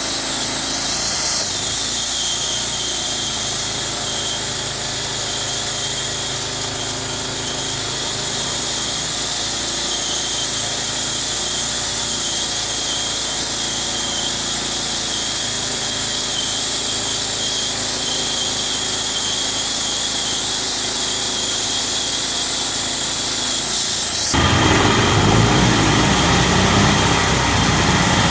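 Wood-sawing machine running steadily. About 24 seconds in, the sound changes abruptly and gets louder, with a deeper rumble added.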